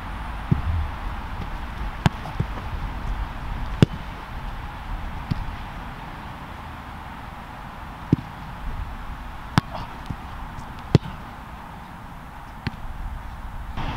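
A soccer ball being kicked and bouncing on artificial turf: a series of sharp thuds at irregular intervals, some loud and close, some fainter, over a steady outdoor hum.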